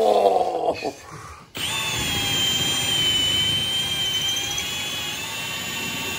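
Cordless drill boring a hole into the wall for a plastic wall anchor: a steady high-pitched whine that starts about a second and a half in.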